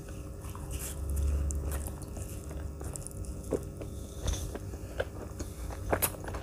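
Close-up eating sounds: a person biting and chewing food, with sharp crunchy clicks that come more often in the second half. A low rumble about a second in.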